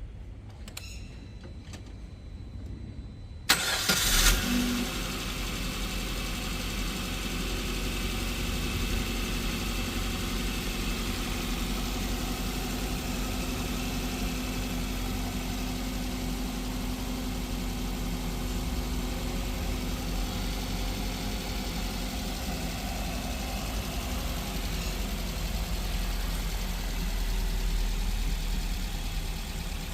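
Freshly overhauled Maruti Suzuki Brezza 1.5-litre four-cylinder petrol engine cranking and catching about three and a half seconds in on its first start after the rebuild, then settling into a steady idle.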